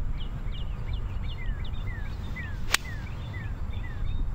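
A 7 iron striking a golf ball off fairway turf: one sharp click a little under three seconds in. Under it, wind rumbles on the microphone and birds chirp over and over, with several falling whistles.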